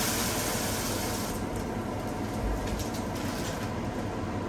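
Hot water poured from an electric kettle into a pan of garlic frying in hot coconut oil, hissing and sizzling loudly at first and dying down after about a second, over a steady low rumble.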